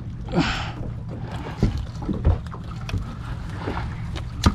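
Irregular knocks and scrapes as a mud crab is moved from the crab pot into a bucket, the sharpest knock near the end, over a steady low hum.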